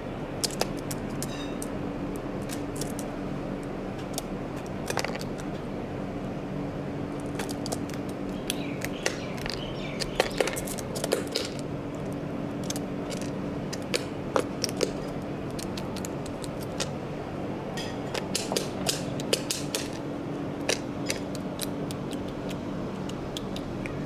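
Scattered sharp taps and clicks from a common myna pecking and stepping about on a windowsill and fruit plate. They bunch up about ten seconds in and again near nineteen seconds, over a steady low hum.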